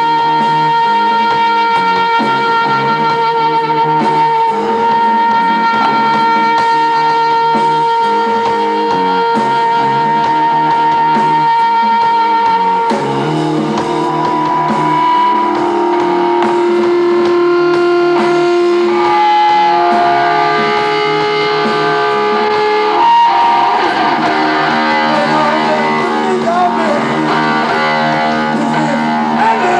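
Live rock band music led by electric guitar. Long sustained notes are held for about the first half. The guitar then moves through a series of held notes that change every second or two, and turns to busier, bending phrases in the last few seconds.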